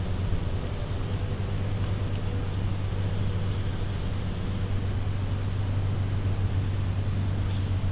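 A steady low mechanical hum, like a machine or motor running, with no change in pitch or level.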